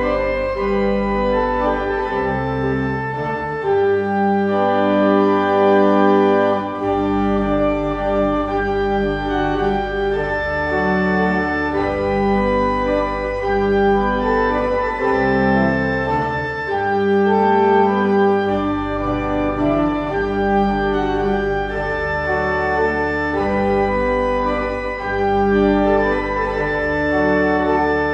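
Church organ playing slow, sustained chords over low bass notes that change every second or two.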